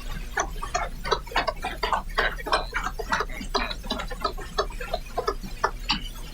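Scattered, irregular claps and knocks of approval from members of a parliamentary chamber, several a second for about five and a half seconds, over a steady mains hum.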